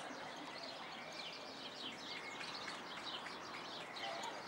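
Many small birds chirping continuously: rapid short chirps that slide downward, over a steady background hiss.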